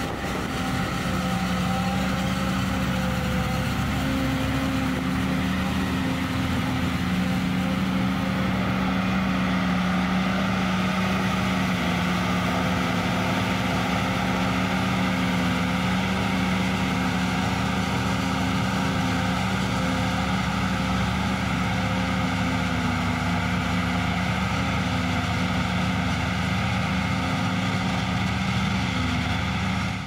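John Deere 7580 self-propelled forage harvester running steadily under load while chopping corn and blowing it into a silage truck alongside: a constant engine drone over a rushing noise, with the truck's engine mixed in.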